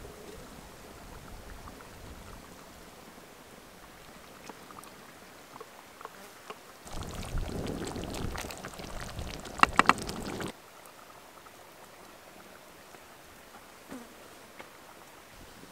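Chickpea and beef stew bubbling in a clay pot while a wooden spoon stirs it, for about three and a half seconds from around seven seconds in, with three sharp knocks near the end before it cuts off. Otherwise faint outdoor quiet with a few small clicks.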